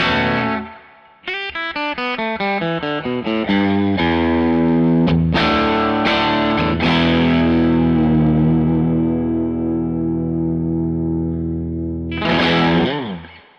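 Strat-type electric guitar on its bridge pickup, played through a Mesa Boogie Blue Angel 1x12 tube combo loaded with a Twinsound Cream 50 W Alnico speaker, with spring reverb. A ringing chord fades out, then comes a quick run of single notes, then chords left to ring. It ends with a last chord that slides down in pitch and dies away.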